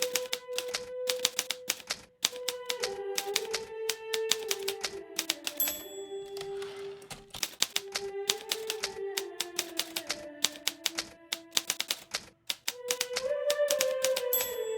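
Hermes Baby portable typewriter being typed in quick runs of sharp key strikes, over soft melodic background music. About halfway through, a short bell-like ring comes, followed by a rasping slide, typical of the margin bell and the carriage being returned; the ring comes again near the end.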